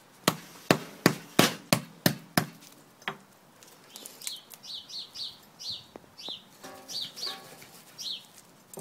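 A large knife chopping through a dressed chicken's leg joints onto a padded table, about eight sharp blows in the first three seconds. After that a bird chirps over and over in short, high, falling notes.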